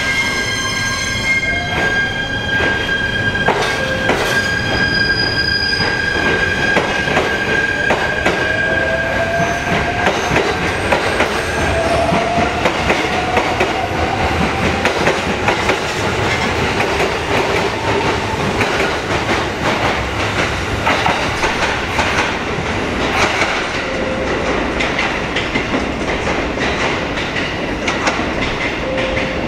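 JR East E129-series electric train pulling out and gathering speed, its motors whining in a slowly rising pitch over the first half while its wheels click over the rail joints.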